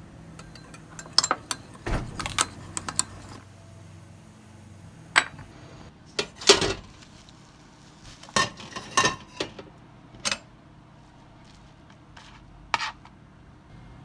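Irregular clinks and clicks of small hard objects being handled and set down, over a low steady hum.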